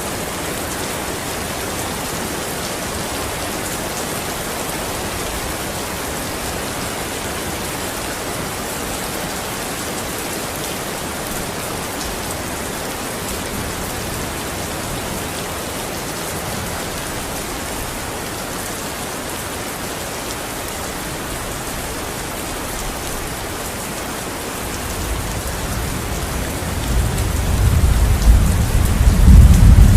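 Steady rain falling, an even hiss of drops. Near the end a low rumble of thunder builds up and grows loud.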